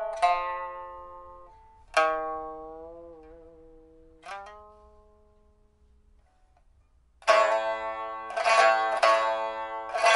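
A Chinese pipa, a 1999 Man Ruixing instrument of Burmese rosewood freshly fitted with a new soundboard and frets, being played solo. A few single plucked notes ring out and fade, one of them wavering in pitch about three seconds in, then a short near-silent pause, then a fast, dense run of plucked notes begins about seven seconds in.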